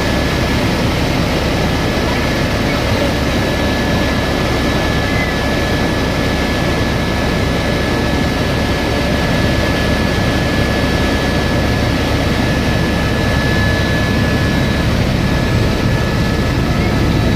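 Helicopter in flight: steady, loud rotor and engine noise with a thin high whine held throughout.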